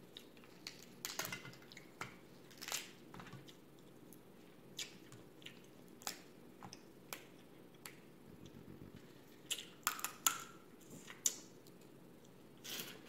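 Cooked crab leg shells being cracked and snapped apart by hand as the meat is picked out, in scattered sharp cracks and clicks with short quiet gaps between them.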